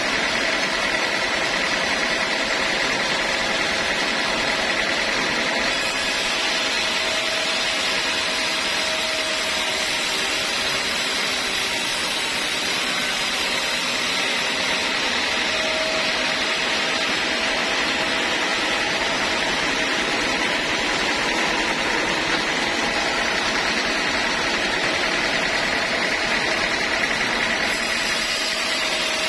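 Sawmill machinery running steadily: a loud, even mechanical drone with a constant high tone above it and no breaks.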